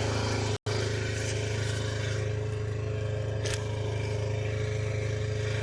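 Chinese mini skid steer's engine running steadily at constant speed. The sound drops out completely for an instant about half a second in, and there is a faint click a little past the middle.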